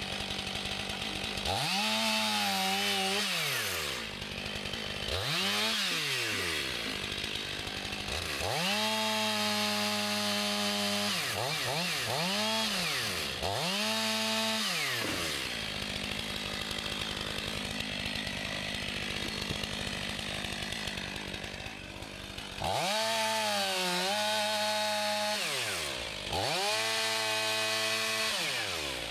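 Chainsaw cutting up a fallen tree trunk. It is revved up to full throttle and let back down about seven times, with a longer, quieter stretch in the middle.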